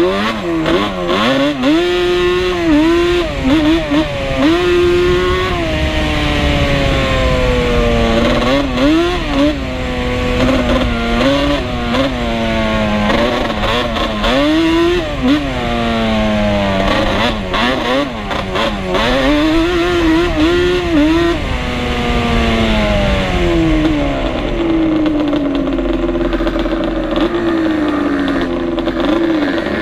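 Two-stroke sport ATV engine under way, its revs climbing in pitch and dropping back again over and over as the throttle is worked.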